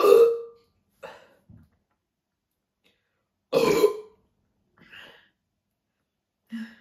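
A woman burping twice, loud and short, about three and a half seconds apart, with a few fainter sounds between: gas brought up after drinking a lot of carbonated Sprite.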